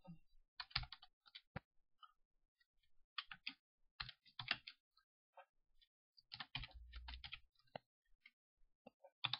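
Quiet computer keyboard typing: several short bursts of keystrokes with pauses between them.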